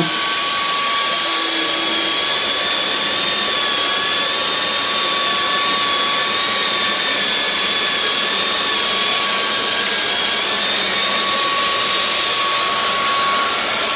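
Dyson DC44 Animal cordless stick vacuum running steadily with its motorised floor head during a dirt pick-up test: a steady high whine over the rush of air.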